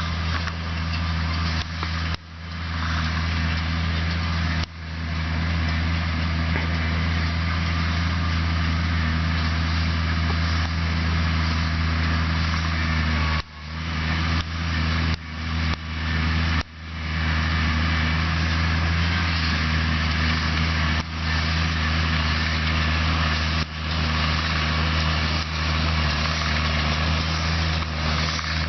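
Case IH Maxxum 140 tractor's diesel engine running steadily while working with a Welger baler, with a few brief sudden drops in the sound along the way.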